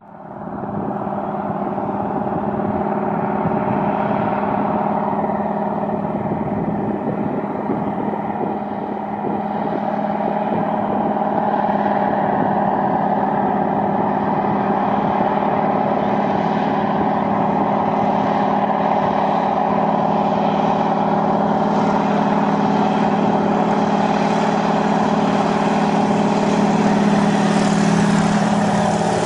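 Floatplane's piston engine and propeller at high power on its takeoff run across the water, a steady drone with a strong low hum. It grows a little louder and hissier toward the end as the plane comes closer.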